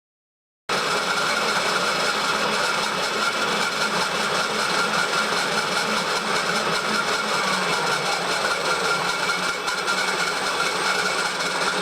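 Milling machine taking a cut along the edge of a metal plate, the spindle and cutter running steadily. The sound starts abruptly about a second in and ends just before the speech resumes.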